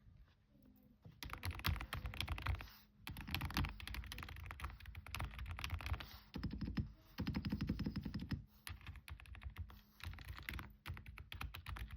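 Typing on a Varmilo Minilo 98 Pro mechanical keyboard with Kailh Prestige Silent switches: quiet, rapid key presses in runs with short pauses between them, starting about a second in.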